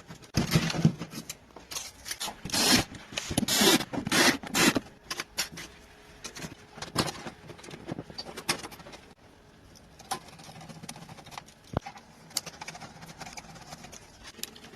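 Handling noise from an NVMe SSD install: dense scraping and clicking in the first few seconds, then scattered light clicks.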